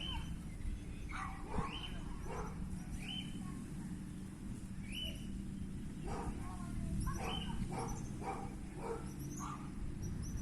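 A dog barking, about a dozen short barks at uneven intervals, over a low steady hum.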